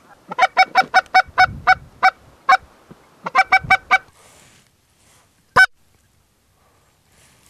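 Geese honking: a quick run of short honks at about five a second, then a shorter run of four, then one loud single honk.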